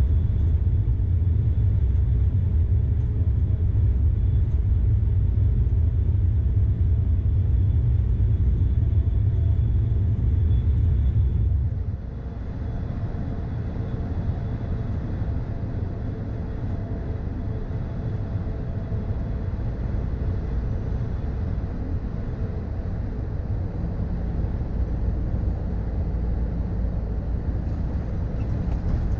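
Inside the cab of a 2013 Scania R440 truck on the road: the 13-litre straight-six diesel runs with tyre and road noise as a steady low rumble. About twelve seconds in, the rumble drops suddenly and stays lower, building a little again near the end.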